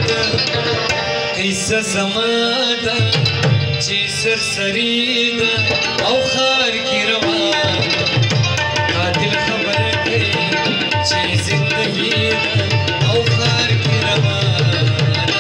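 Pashto rabab-and-mangi folk music: the plucked rabab playing a melody over a fast, steady hand-drummed rhythm.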